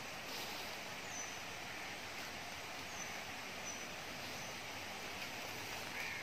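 Steady outdoor background noise with a few faint, short, high-pitched chirps.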